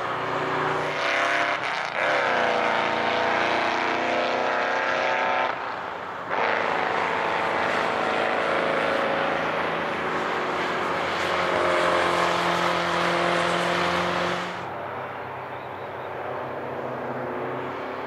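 Historic racing cars driving past one after another on a race circuit, their engines running hard and accelerating, with pitch climbing between gear changes. The sound dips briefly about six seconds in and falls back near the end as the cars move off.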